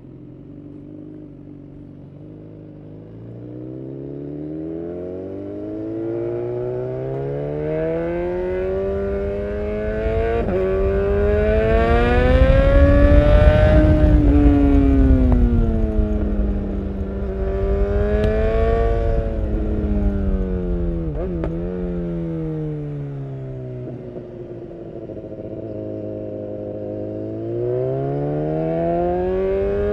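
BMW S1000R's inline-four engine through an Akrapovic full exhaust, heard on board while riding. The revs climb steadily to a peak about halfway, fall away, rise and fall again, then climb once more near the end. Wind rushes over the microphone at speed.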